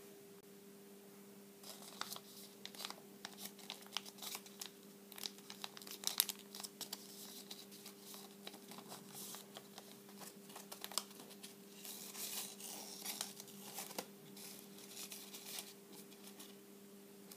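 Sheet of origami paper crinkling and crackling as it is folded and creased by hand into a paper plane, in uneven spurts of rustles and small clicks that start about two seconds in and stop near the end. A faint steady hum sits underneath.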